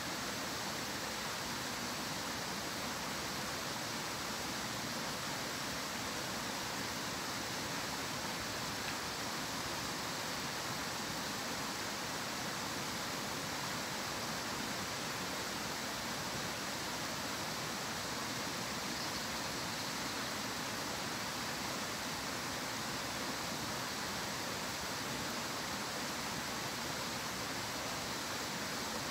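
A stream running, heard as a steady, even hiss of water with no changes.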